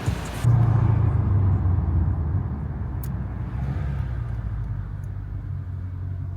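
Dodge Challenger Scat Pack's 392 HEMI V8 starting up: the engine catches about half a second in, flares loudly, then settles to a steady low idle.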